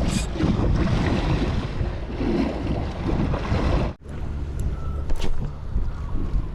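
Wind buffeting the microphone over sea water washing at the shore, cut off sharply about four seconds in and resuming.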